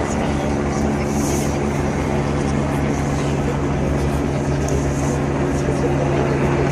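A steady, low engine drone with no bangs or changes.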